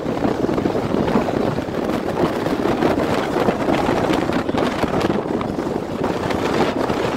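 Wind rushing and buffeting over the microphone of a moving car, with road noise underneath.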